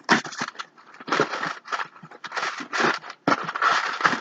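Packing material rustling and crinkling in a cardboard box, in irregular bursts of scraping and crackling.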